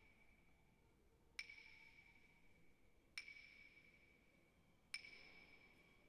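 Sparse contemporary chamber music for soprano saxophone, violin and piano: three soft, high, bell-like pings, evenly spaced a little under two seconds apart, each ringing on and fading slowly in a reverberant church.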